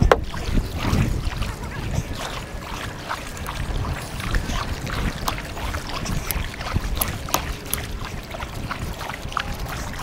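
Kayak paddle strokes dipping and splashing in choppy water, with wind rumbling and buffeting the microphone.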